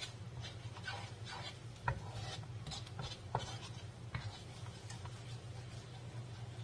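Wooden spatula scraping and stirring around a nonstick wok of garlic and chili oil, in repeated short strokes with a couple of sharper taps, over a steady low hum.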